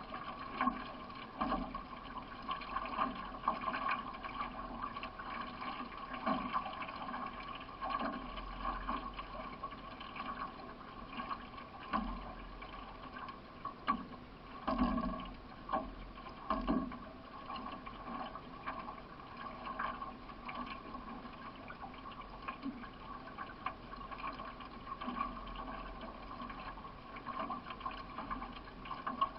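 Water rushing and splashing along a racing canoe's hull as it is paddled, with irregular dull knocks from the paddle strokes. A steady hum runs underneath.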